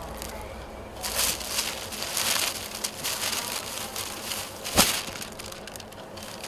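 A dupatta's cloth being handled and unfolded, rustling and crinkling in irregular bursts from about a second in, with one sharp click near the end.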